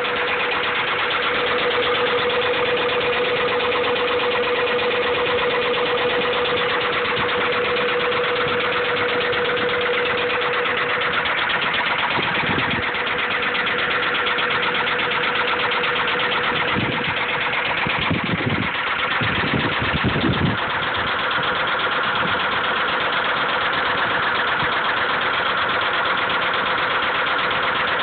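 Honda B16 four-cylinder VTEC engine running steadily at idle with a rhythmic knock, the sign of a worn connecting-rod bearing (rod knock). The sound briefly swells a few times about two-thirds of the way through.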